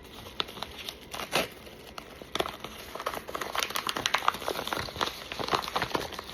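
Packaging crinkling and rustling as a small mystery-charm package is handled and opened, in a run of irregular crackles that grows busier after the first couple of seconds.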